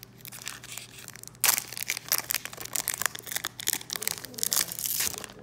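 Foil wrapper of a Pokémon Celebrations booster pack being torn open by hand. It crinkles, gives a sudden loud rip about one and a half seconds in, then keeps crackling as the tear goes on, dying down near the end.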